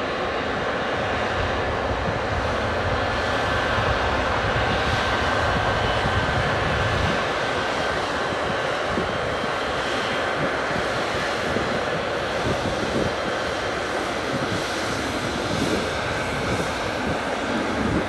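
Boeing 777's twin jet engines running steadily: a continuous even rush of engine noise with a faint steady whine.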